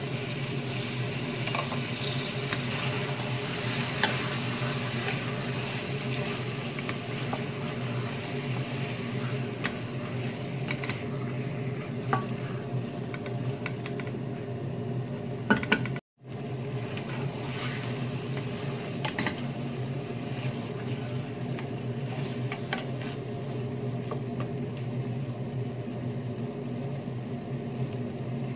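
Meat and chopped tomatoes sizzling in a stainless steel pot on a gas stove, stirred with a wooden spatula that knocks against the pot now and then. The sound breaks off for a moment about halfway through.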